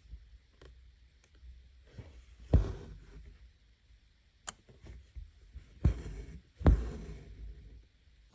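Hand embroidery in a wooden hoop: the needle pushing through the taut fabric and the thread being drawn through, giving several soft thumps a second or more apart, with one sharp tick about halfway.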